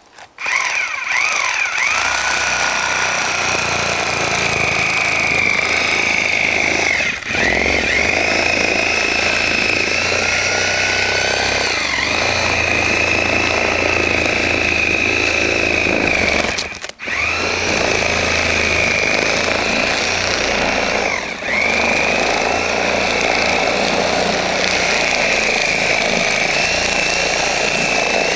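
Electric power saw cutting a hole through roof shingles and decking. A steady high motor whine sags in pitch several times as the blade bites, and the saw stops briefly and restarts about seventeen seconds in.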